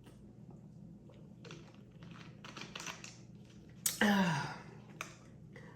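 Soft clicks and rustles of handling for the first few seconds, then a loud burp about four seconds in, falling in pitch.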